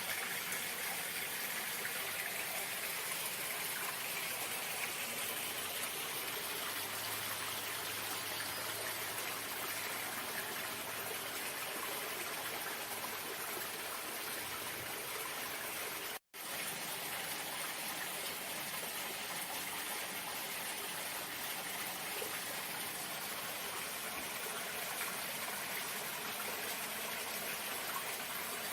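Running water making a steady, even rush. The sound drops out completely for an instant a little past the middle.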